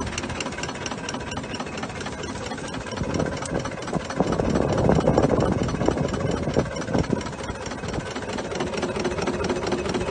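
A small steam locomotive standing in steam: a continuous mechanical running noise with fine rapid ticking, growing louder around the middle.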